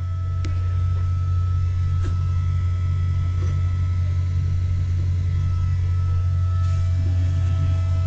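Steady, loud, low machinery hum with a few faint steady whines above it, and a light tick about half a second in and another about two seconds in.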